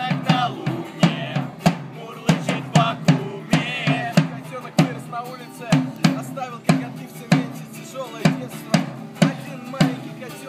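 Live acoustic band: two steel-string acoustic guitars strumming over a drum struck with sticks in a steady beat, about two hits a second, with voices singing along.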